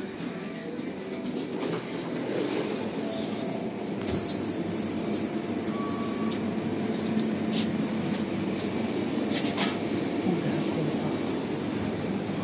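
Supermarket interior ambience: a steady high-pitched whine over a low hum, both louder about two seconds in, with one short beep about six seconds in.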